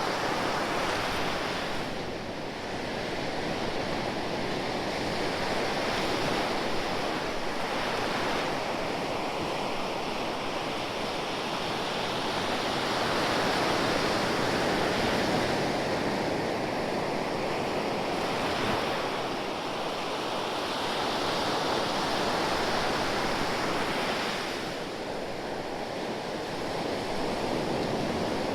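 Ocean waves breaking and washing on the shore, a continuous surf with slow swells in loudness every several seconds.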